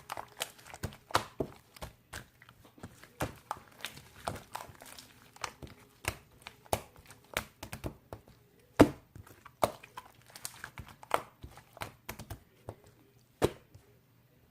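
Irregular series of sharp taps and clicks with a few louder knocks, stopping shortly before the end.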